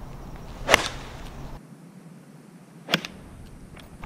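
An 8-iron striking a golf ball off the tee: one sharp, crisp crack under a second in. A second, smaller click follows about two seconds later.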